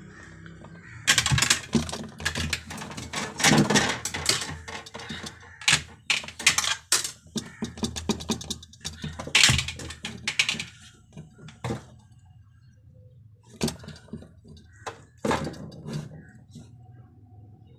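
Irregular clicks, taps and rattles of small hard parts being handled and fitted, as a fridge thermostat's connector pieces are put in place. The clicks are busiest in the first half and turn sparse near the end.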